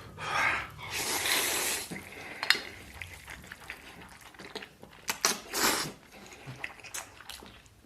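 Eating sounds: hissy slurps of instant noodles in a few bursts, near the start and again past the middle, with light clicks of utensils against a bowl in between.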